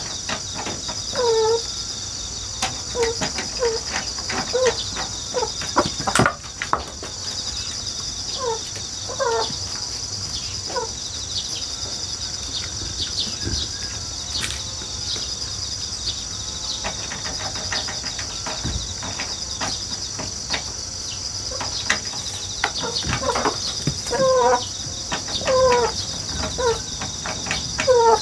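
Chickens making short clucking calls in scattered clusters, over a steady high chirring of grass insects, with occasional light clicks and rustles.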